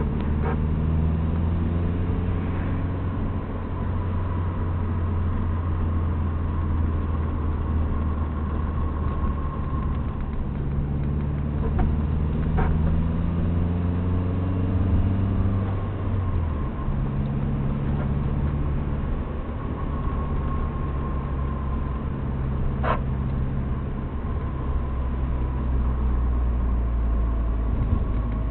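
A 1999 Subaru Impreza GC8 2.0 driving, its engine and road noise running steadily, broken by sharp single knocks right at the start, about twelve seconds in and again about twenty-three seconds in. The knocks are an unexplained noise the owner hears only with three or more people aboard, on the car's original factory shock absorbers.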